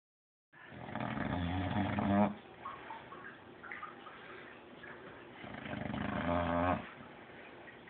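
Pet dog snoring: two long, rasping snores about five seconds apart, each growing louder and then cutting off abruptly.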